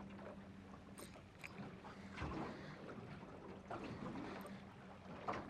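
Faint water lapping around a small fishing boat, with a few light knocks and clicks.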